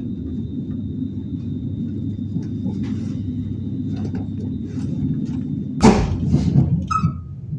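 Steady low rumble of a train in motion, heard from inside the carriage, with a faint high whine. About six seconds in the whine stops and a loud sudden bang sounds, followed by a few rattles.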